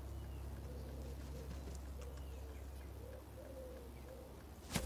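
A pigeon cooing, a repeated phrase of soft low notes, with a few faint chirps above it. A single sharp knock near the end is the loudest sound.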